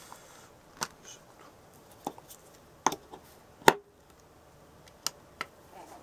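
About six sharp plastic clicks and taps, the loudest a little past halfway, as a power wire and its clip are fitted to a Lego Technic Hub.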